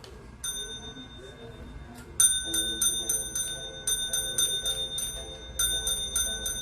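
A small bell dinged by hand over and over, all at the same bright pitch: one ding about half a second in, then three quick runs of dings, about four or five a second.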